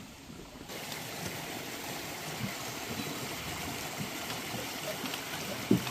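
Small forest creek running steadily, an even rushing hiss that comes up about a second in, with a few soft low thumps over it.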